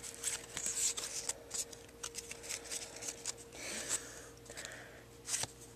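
Pokémon trading cards handled and slid against one another as they are sorted through: faint, irregular light clicks and rustles of card stock.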